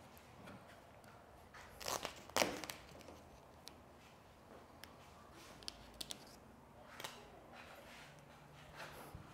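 Avery Dennison gloss gray vinyl wrap film crinkling and rustling as it is handled and laid over a car hood, with a couple of louder rustles about two seconds in and a few light taps later.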